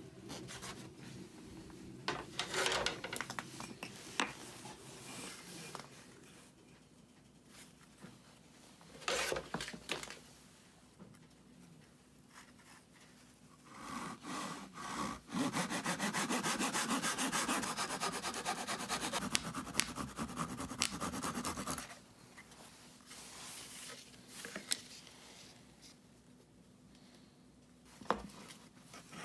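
Wood being rubbed and scraped while spruce-top guitar braces are worked: short scattered strokes and knocks, then a steadier stretch of continuous rubbing of about six seconds past the middle.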